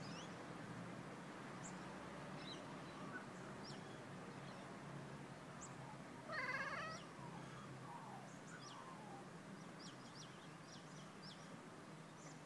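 A tabby cat gives one short trilling chirp about six seconds in, the chirping a cat makes at a bird it is watching, here a magpie. Small birds chirp faintly in the background.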